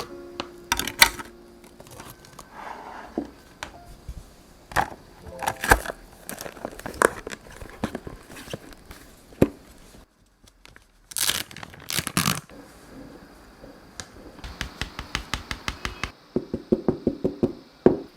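Plastic food packaging being handled: crinkling and tearing with scattered sharp clicks and knocks, and a quick run of clicks near the end.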